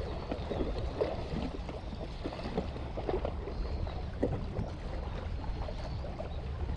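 Seawater lapping and sloshing against the breakwater in small irregular slaps, over a low steady rumble.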